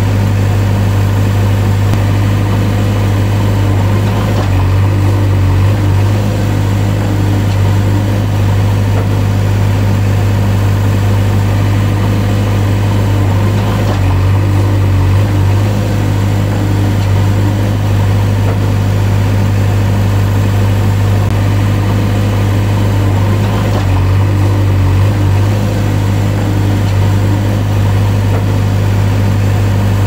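A motor engine idling steadily, a low, unchanging drone with no revving.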